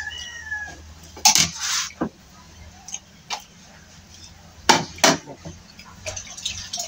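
Plates and dishes knocking and clinking on a wooden table as they are moved, a few separate knocks with the loudest about a second in and near the middle. The end of a rooster's crow fades out at the start.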